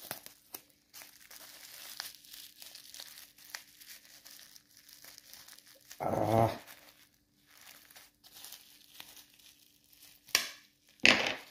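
Plastic bubble wrap crinkling and rustling as hands unwrap a small diecast model car. A short pitched sound comes about six seconds in, and two sharper, louder sounds near the end.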